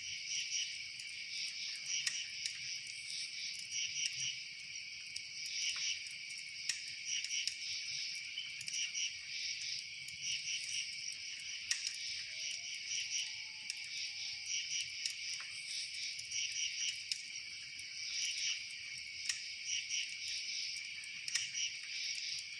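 A steady chorus of crickets chirping in fast pulsed trills, with occasional faint clicks and a brief faint whistle about halfway through.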